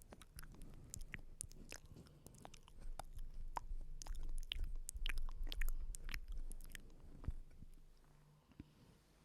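Close-miked ASMR mouth sounds: a scatter of wet clicks and smacks, with a low rumble that swells in the middle and fades away near the end.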